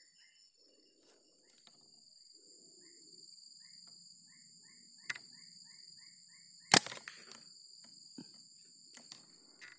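A single sharp rifle shot nearly seven seconds in, by far the loudest sound, with a brief ring after it. Under it runs a steady high insect drone, with a run of short repeated chirps before the shot and a few faint clicks after.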